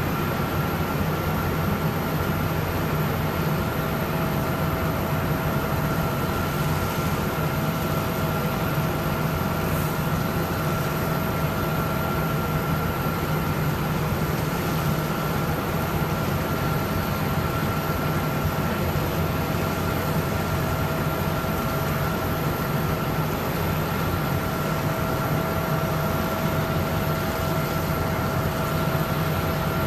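Steady machinery drone of a de-icing truck running its engine and pump while spraying de-icing fluid over an Airbus A320. A constant low hum runs under a thin, steady high whine, with no change in level.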